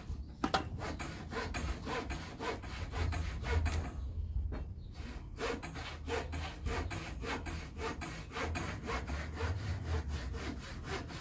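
Hand saw cutting through a piece of timber, in steady back-and-forth strokes of about three a second, with a brief pause about four seconds in.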